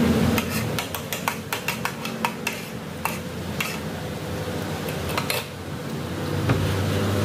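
A metal spoon and fork clinking and scraping on a plate while eating, a quick run of clicks over the first few seconds that thins out later.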